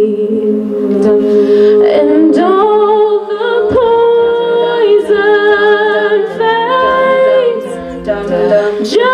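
A cappella vocal group singing voices-only harmony, with low notes held steady beneath upper parts that move from chord to chord.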